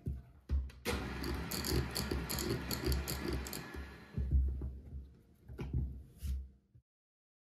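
A silicone spatula knocking against mixer beaters, then scraping and stirring thick whipped tiramisu cream in a glass bowl, with wet sloshing and small taps on the glass. The sound cuts off abruptly near the end.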